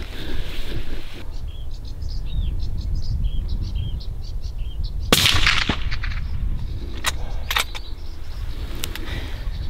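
A single gunshot about five seconds in, a sharp crack that rings out for about half a second, fired at greylag geese. Before it, small birds chirp over wind rumble on the microphone, and a few sharp clicks follow the shot.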